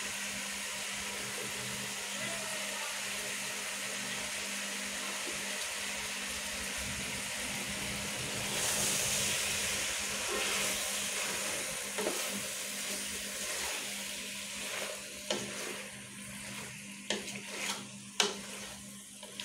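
Chicken, potatoes, carrots and tomatoes sizzling in oil in a pot while a wooden spoon stirs them. The sizzling grows louder about halfway through, then several sharp knocks of the spoon against the pot come in the last few seconds as the sizzle dies down.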